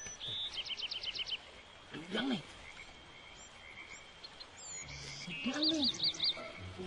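Small animals calling among garden plants: rapid runs of high chirps repeating every few seconds over a faint steady high tone, with two short low calls that rise and fall, about two and five and a half seconds in.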